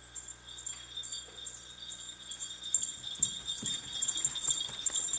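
Small bells jingling in quick, irregular shakes, growing louder and busier from about three seconds in, with some low shuffling knocks beneath.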